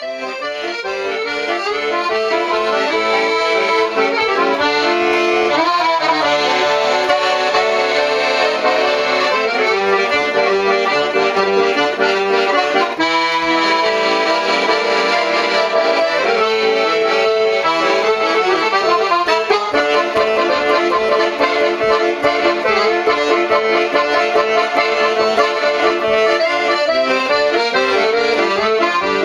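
Elka piano accordion played solo: an instrumental passage of melody over sustained chords, fading in over the first couple of seconds.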